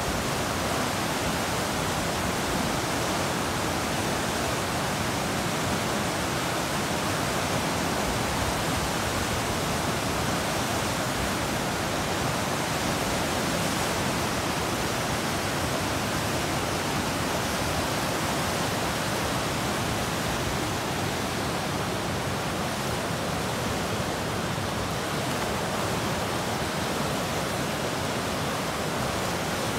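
The River Severn rushing fast just below a weir, swollen and brown, churning through standing waves and white water: a steady, unbroken rush of water.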